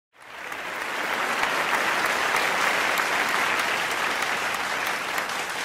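A large audience applauding: dense, steady clapping that swells up quickly at the start and eases off a little toward the end.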